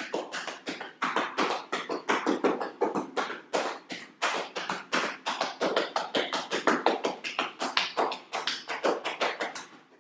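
Hands tapping and patting rapidly along the legs in yoga self-percussion: a quick, uneven run of light slaps, about five a second.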